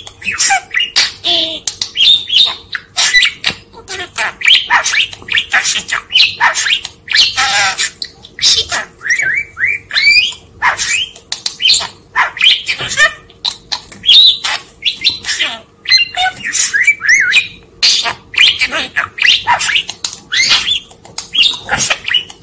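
Talking budgerigar chattering and warbling without a break: rapid chirps, clicks and scratchy squawks, with mimicked Japanese words such as "wan" and "mukashi" mixed in.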